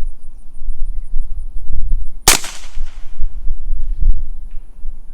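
A single suppressed gunshot through an EPC suppressor, about two seconds in: a sharp crack with a short ringing tail.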